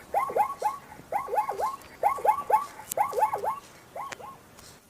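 Zebra calling: a string of short, bark-like calls, each dropping in pitch, in quick groups of two or three about once a second. The calls stop shortly before the end.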